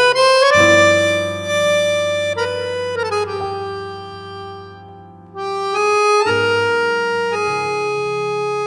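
Jazz accordion playing held chords and melody notes in three-quarter time, over sustained bass notes. The sound thins and fades about four seconds in, then a new loud chord with bass comes in just past five seconds.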